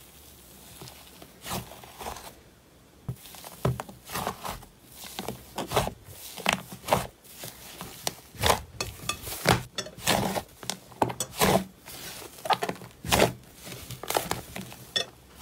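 Fluffy slime being kneaded, squeezed and folded by hand: irregular wet squishes and crackling pops, sparse at first and then coming every fraction of a second.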